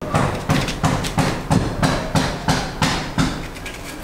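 A kitchen knife slicing through a red onion held in the hand, a crisp cut with each stroke, about three a second, stopping a little before the end.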